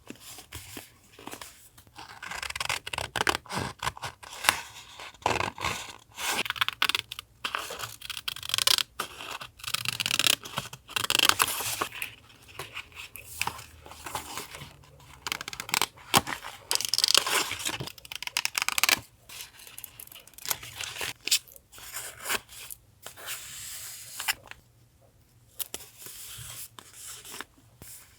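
Paper being torn and handled by hand in irregular bursts, with short pauses between the tears.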